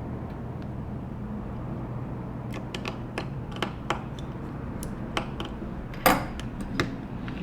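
Small metal tools clicking and ticking against an opened iPhone 7 Plus as its tiny bracket screws are driven in, in scattered light taps with one louder click about six seconds in, over a steady low hum.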